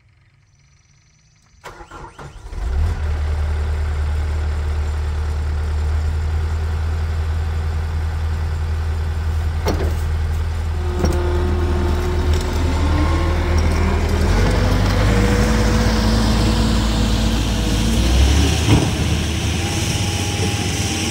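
Takeuchi TL10V2 compact track loader's diesel engine starting about two seconds in, then running with a steady low drone. From about eleven seconds in, rising whines join it as the loader is driven around, with a couple of sharp clanks.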